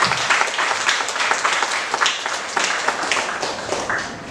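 Congregation applauding with many hands clapping, thinning out and fading near the end.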